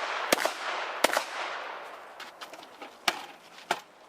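Shotgun shots: two loud shots less than a second apart near the start, then two more, about 0.6 s apart, around three seconds in. Each is followed by a rolling echo, with fainter sharp clicks between the shots.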